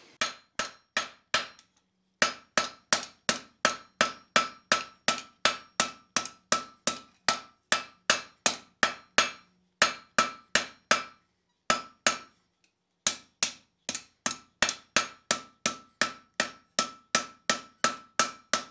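Hand hammer striking red-hot steel on an anvil, forging the jaws of a pair of scroll tongs round: a steady rhythm of about three blows a second, each with a bright ring from the anvil. The hammering pauses briefly twice, about a second and a half in and again about two-thirds of the way through.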